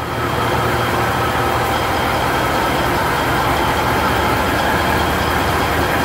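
Diesel engine of a Putzmeister stationary concrete pump running steadily, a low drone that gets a little louder just after the start.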